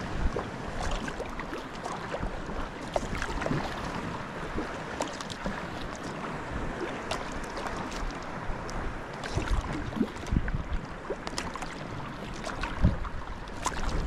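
Water splashing and lapping against a folding sea kayak as it is paddled, with small scattered splashes and wind buffeting the microphone in low rumbles now and then.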